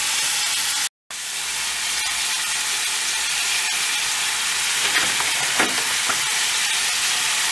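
Ground beef sizzling in hot oil in a stainless-steel frying pan over high heat as small pieces are dropped in: a steady hiss that cuts out for a moment about a second in, with a few light knocks in the second half.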